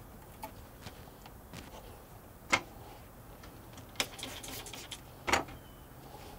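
A few sharp knocks and clicks as a spray bottle and tools are handled and set down on a boat deck, with a quick run of spray-bottle squirts onto a rag about four seconds in.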